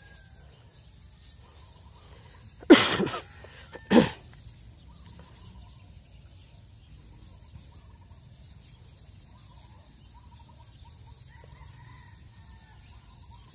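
Two loud, short pitched calls, the first about three seconds in and a briefer one a second later, over faint bird chirping and a steady high hiss.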